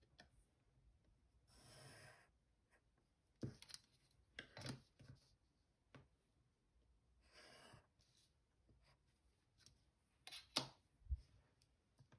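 Pencil drawing two straight lines along a plastic ruler on paper, each a short scratchy stroke under a second long, with several light clicks and taps as the ruler is set down and moved.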